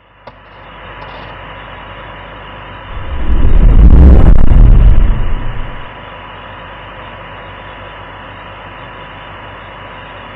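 Steady hissing ambience, with a loud deep rumble that swells about three seconds in and dies away about three seconds later.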